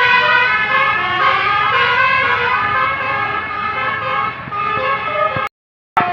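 Basuri telolet bus horn playing a tune of held, changing notes on its several trumpets together. The sound cuts out abruptly for about half a second near the end.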